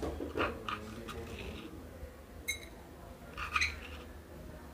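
Plastic measuring spoon scraping and tapping against a stone mortar while scooping out coarsely pounded spice seeds: a few soft scrapes and clicks, with a brief high ping about halfway through.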